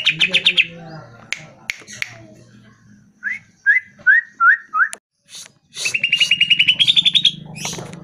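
Male cucak ijo (greater green leafbird) singing in a cage. A fast rising trill ends just after the start, a run of five short slurred whistles comes about three seconds in, and a second long fast trill rising in pitch comes near the end.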